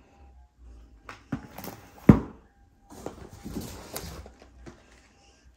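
Cardboard diamond painting kit boxes being handled and set down on a stack: a few knocks, the loudest about two seconds in, then rustling of the boxes and packaging.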